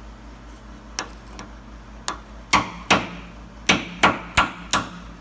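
A hammer tapping about nine times, unevenly spaced, on a new U-joint bearing cap, driving the cap farther into the drive shaft yoke.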